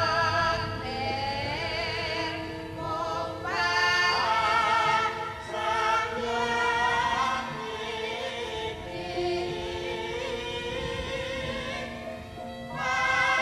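Javanese gamelan music accompanying dance, with singing voices holding long, wavering notes over steady sustained instrumental tones.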